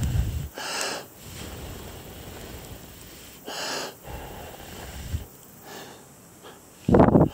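A person blowing short puffs of breath onto a smouldering scrap of cotton-nylon cloth to keep the embers glowing, two puffs about three seconds apart, then a louder rush of air near the end.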